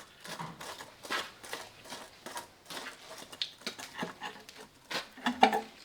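Irregular clicks and knocks of metal parts being handled while working on a Farmall Super C's oil bath air cleaner, with a short pitched sound about five and a half seconds in that is the loudest moment.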